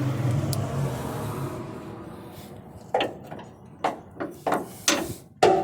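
Hand tools knocking and clanking against metal under a pickup truck at the rear shock's upper mount: about five sharp, separate knocks in the second half, the last near the end the loudest. A low steady drone fills the first second and a half.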